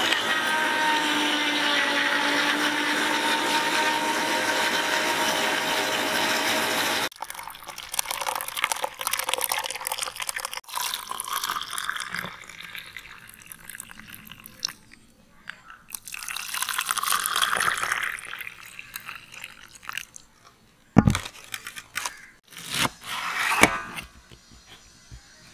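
Electric mixer grinder running steadily at full speed, blending strawberries with sugar and water, cut off abruptly about seven seconds in. Juice then pours and splashes into plastic cups, and near the end a knife knocks a few times on a wooden chopping board, slicing pineapple.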